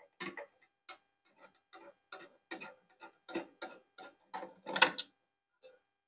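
Screwdriver turning a screw inside a microwave oven's metal chassis to free the high-voltage capacitor's bracket: irregular light clicks, a few a second, with a louder scrape about five seconds in.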